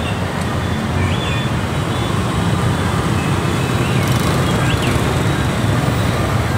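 Steady city street traffic noise: the low hum of passing vehicle engines and tyres, with a few faint short high-pitched tones over it.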